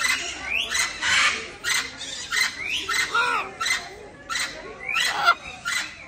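Parrots squawking: a run of short, harsh calls, about two a second, several sweeping quickly upward in pitch, the loudest about five seconds in.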